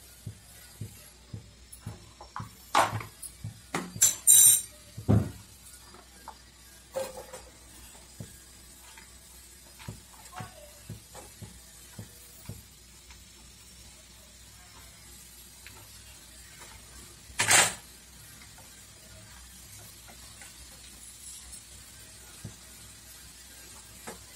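Onions frying quietly in oil in a pan on a gas burner. Scattered knocks and clinks of the pan and utensils come in the first few seconds, and there is one loud clatter about 17 seconds in.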